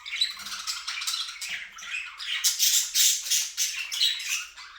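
Budgerigar chattering: a continuous run of rapid chirps and squawks, loudest a little past the middle.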